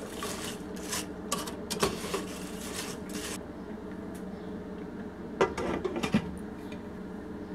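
Green beans and chopped cashews stirred in a nonstick frying pan, with scraping strokes for about three seconds. About five and a half seconds in, a glass lid is set on the pan with a brief clatter, over a steady low hum.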